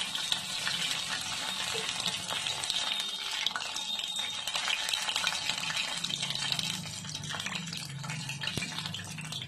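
Batter-coated Bombay duck (lote fish) pieces deep-frying in hot oil in a kadai: a steady crackling sizzle of bubbling oil.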